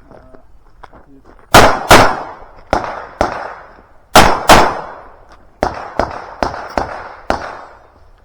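Pistol shots during an IDPA stage. There are two loud double-taps about two and a half seconds apart, with fainter single shots between them and a run of about five more afterwards.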